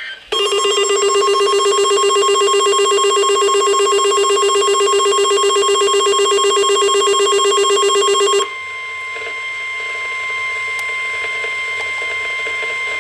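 Emergency alert tones for a Special Marine Warning. A loud electronic alarm tone pulses rapidly for about eight seconds, then gives way to a steady single-pitch warning tone of the kind NOAA Weather Radio sends before a warning message.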